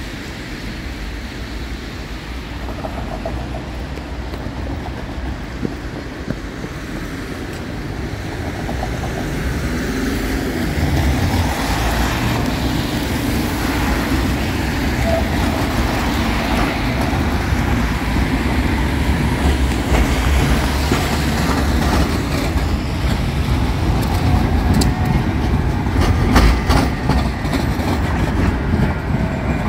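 Street traffic at a tram junction: cars driving past and trams running over the tracks, a steady rumble that grows louder from about ten seconds in. Near the end a tram passes close, with a run of sharp clicks and clatter as its wheels cross the rail junctions.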